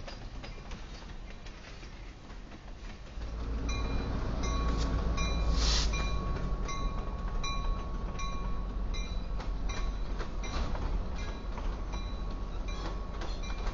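Freight train rolling slowly past, its wheels clicking over the rail joints. About 3 s in it grows louder with the low rumble of an EMD GP38-2 diesel-electric locomotive's engine as the engine passes close by, with a short hiss near the middle.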